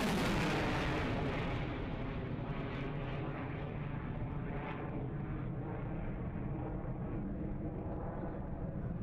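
Surface-to-air missile's rocket motor just after launch: a loud rushing blast that eases over the first second or two into a steady rumble as the missile climbs away.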